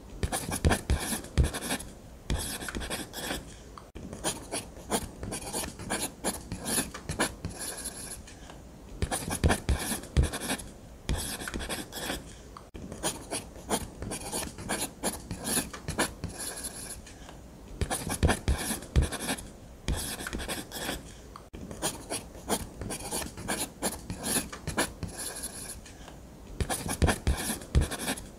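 Ballpoint pen scratching across paper in quick strokes as it draws, in runs of a few seconds split by short pauses, with a few soft knocks now and then.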